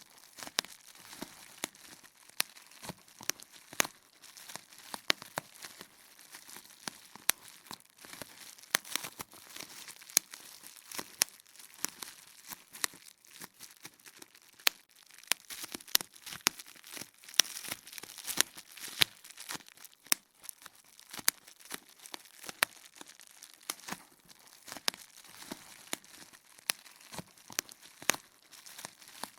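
Bubble wrap being popped: sharp, irregular pops, several a second, over the steady crinkling of the plastic sheet.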